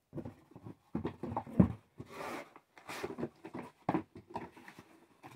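Packaging being handled while a chainsaw is unboxed: irregular rustling and knocks, with a longer rustle about two seconds in.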